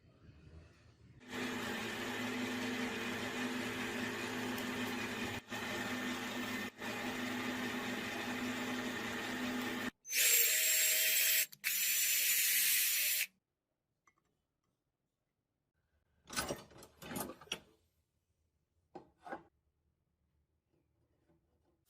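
An electric power tool runs steadily for about nine seconds, broken twice by brief cuts, then a louder, hissier tool sound lasts about three seconds. After a silence come a few short sounds near the end.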